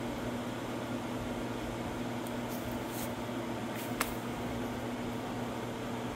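Steady low machine hum, with a faint click about four seconds in.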